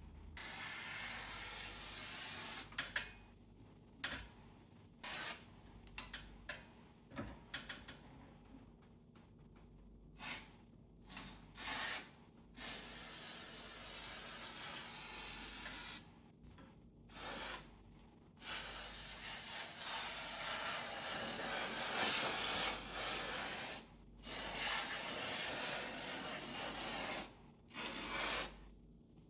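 A sprayer hissing in repeated bursts, some short and some several seconds long, as it sprays the dirty inside of an air conditioner's indoor unit to clean it.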